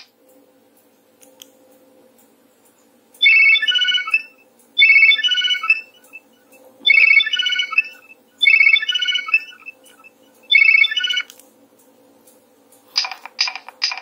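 Nokia 3105 mobile phone's loudspeaker playing a ringtone preview: a short electronic phrase of several stacked tones repeats five times, each burst about a second long with short gaps between. About a second before the end, a different ringtone of fast pulsing beeps starts.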